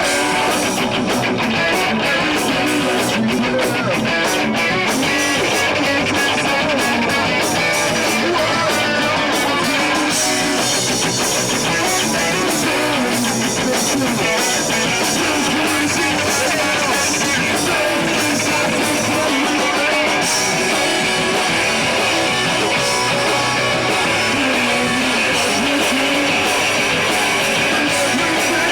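Rock band playing live, electric guitars strumming over bass and drums, loud and steady.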